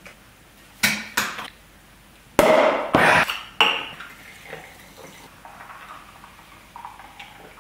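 Glass bottles being handled as a champagne bottle is opened, with a few sharp clinks and knocks and a loud cluster of sharp sounds a little past the middle. After that, liquid is poured more quietly into a glass.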